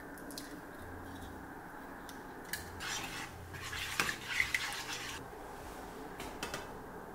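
Eggs being beaten in a white frying pan: a utensil scraping and clicking against the pan for a couple of seconds in the middle, loudest around the middle, after a few light taps of eggshell at the start and followed by a few more light taps near the end.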